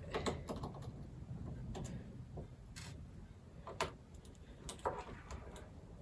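A screwdriver undoing the small screws on a laptop's bottom cover: irregular light clicks and taps of the tool against the screws and plastic case, about eight or nine in all.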